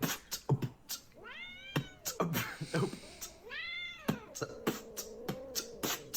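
Domestic cat meowing: two drawn-out meows that rise and fall in pitch, over a rapid run of sharp clicks and low thumps.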